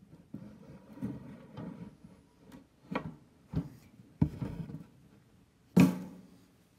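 Scattered soft knocks and rustles, about five of them at uneven intervals, with the loudest, sharpest knock near the end.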